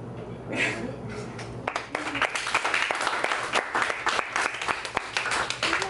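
Audience applauding, starting just under two seconds in, after a short burst of voice about half a second in.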